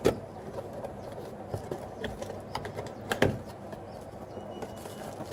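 Headphone packaging being handled and opened: low rustling with a few small clicks and two sharper knocks, one at the start and one about three seconds in.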